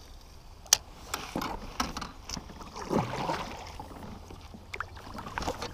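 A sharp click a little under a second in, then scattered knocks and rustles of fishing gear and a paddle being handled on a plastic sit-on-top kayak.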